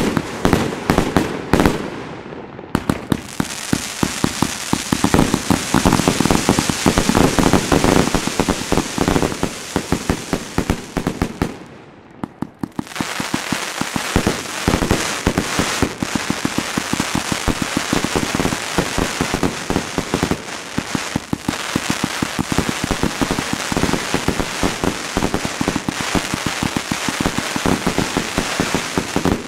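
Consumer firework battery firing: a dense, rapid string of shots and crackling star bursts that thins out briefly about twelve seconds in, then builds up again.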